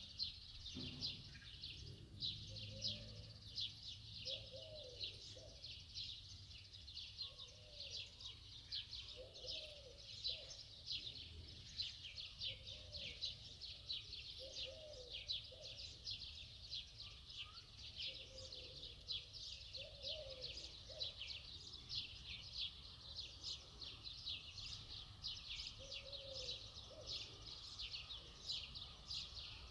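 Many small birds chirping continuously in a rapid, dense chatter, with a lower curved call recurring about every two seconds.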